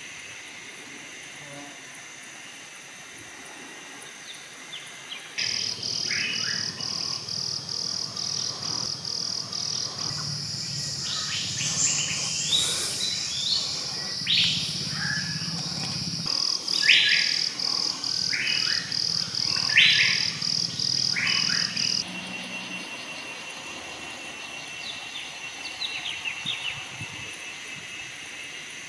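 Forest ambience of birds calling and insects. A loud, high, pulsing insect drone and a run of sharp bird chirps cut in about five seconds in and stop abruptly after about twenty seconds, leaving a fainter steady insect tone and a few scattered chirps.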